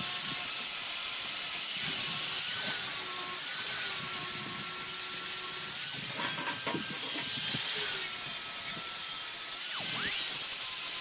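Angle grinder with an abrasive disc grinding welds on square steel tubing: a steady high whine with hiss. Around six seconds in the grinding stops for a moment and there are a few metallic knocks. Near the end the grinder's pitch drops and then rises again.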